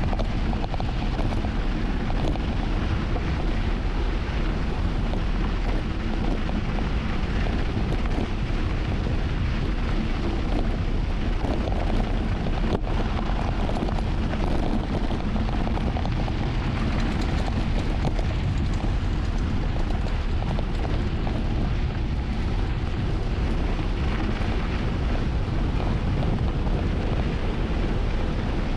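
Wind buffeting an action camera's microphone during a fast downhill mountain bike ride: a steady, loud low rumble.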